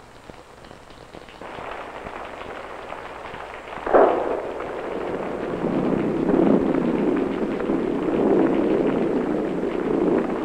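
Rain on the film's soundtrack: a crackling hiss of falling rain that starts faintly, with a sudden sharp burst about four seconds in, then grows louder into a steady downpour.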